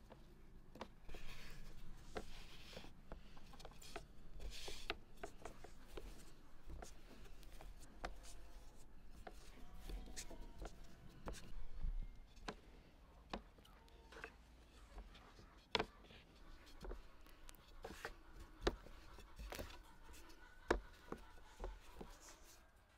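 Long thin wooden rolling pin rolling out a sheet of dough on a wooden board: soft rubbing strokes with scattered light knocks of the pin against the board.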